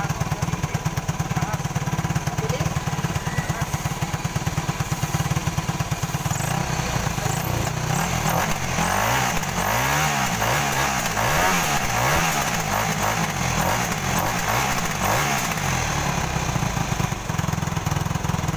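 Yamaha 450R ATV's single-cylinder four-stroke engine idling with a steady pulse, then revved up and down repeatedly for several seconds about halfway through before settling back to idle. The engine is running again after its dirt-clogged carburettor was cleaned.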